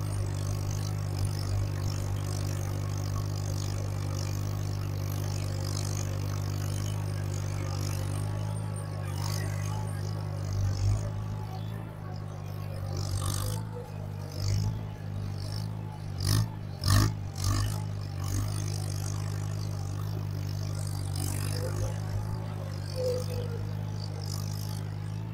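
Farmall 140 tractor's four-cylinder gasoline engine running steadily under way while cultivating rows, with a few clunks and rattles in the middle as the tractor and its disc implement turn across rough ground.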